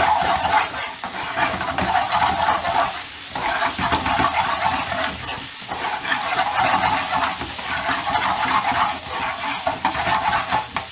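Diced onions with freshly added garlic and ginger paste sizzling in hot oil in a frying pan, a steady crackling hiss with brief dips about three and five and a half seconds in.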